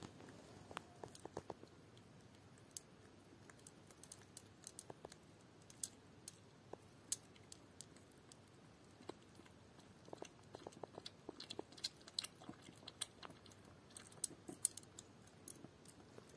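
Puppy lapping milk from a small glass bowl: faint, irregular wet clicks of its tongue, coming thicker in the second half.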